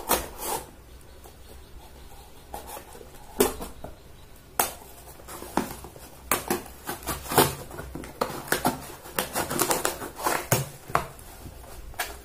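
A sealed delivery box being opened by hand: irregular scrapes, tearing and rustles of the packaging with a few sharper knocks.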